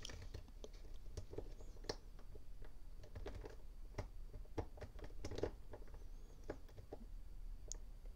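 A thin 0.020-inch lock pick scraping and clicking against the pin stacks inside a Yale Y210C/51 padlock's core while it is held in a false set. Faint, irregular small metallic clicks and scratches.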